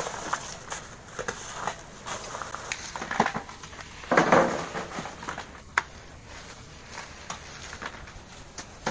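Shovels scraping and crunching through sand and gravel, with scattered knocks of small stones. Later come sparse knocks and rustles, with one brief louder noisy burst about four seconds in.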